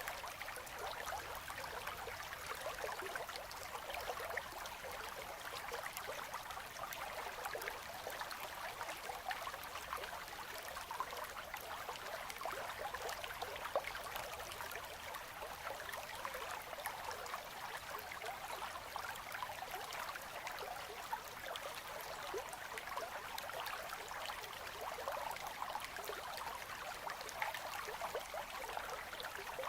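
River current flowing through ice, a steady, unbroken babble of water with fine trickling detail.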